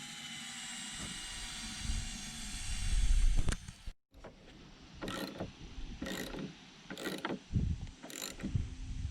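Socket ratchet wrench cranked in short, repeated strokes, about one a second, tightening nuts onto the sill anchor bolts. Earlier there is a steadier mechanical sound with a heavy low thump about three seconds in.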